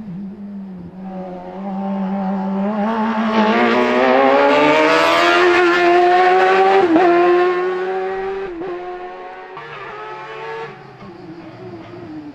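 Race-prepared Fiat X1/9 with a Suzuki GSX-R1000 inline-four motorcycle engine accelerating hard: the engine note climbs steadily in pitch for several seconds to a loud peak, breaks sharply at an upshift about seven seconds in, then falls away and fades.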